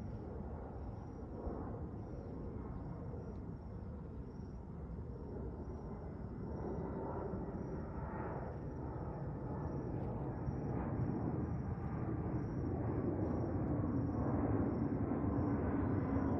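Twin-engine jet airliner passing overhead, its engines making a steady rumble that grows louder as it comes closer.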